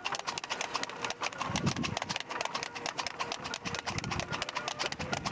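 A harness horse's hooves clip-clopping in a fast trot on a paved road as it pulls a racing cart.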